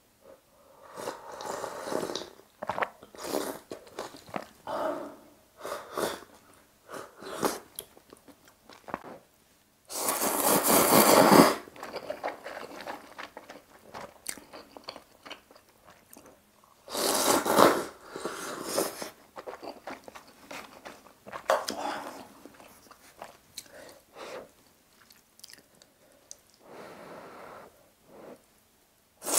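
Close-up eating sounds from a person eating budae-jjigae stew with ramen noodles: sips of broth, chewing and smacking, with two long, loud slurps about ten and seventeen seconds in.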